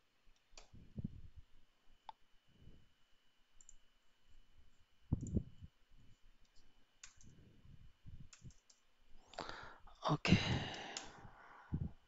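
Faint, scattered clicks of a computer keyboard and mouse, with a few soft low thumps. About nine seconds in comes a louder breath at the microphone.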